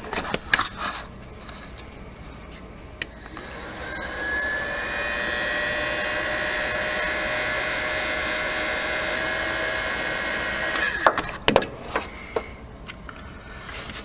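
A steady motor whine, like a power tool, runs for about seven seconds, rising slightly as it comes up to speed and then stopping abruptly. A few clicks and knocks from handling come before and after it.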